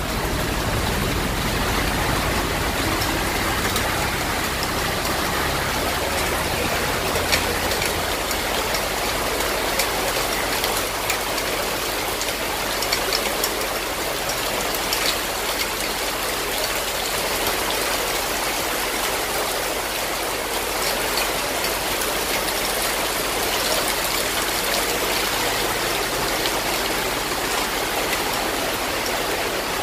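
Heavy rain pouring down, with a steady hiss of drops and muddy runoff rushing over the street and pavement.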